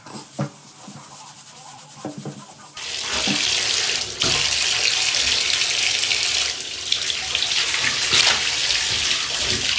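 Water from a bathtub faucet running steadily into the tub, starting about three seconds in, after a few light knocks.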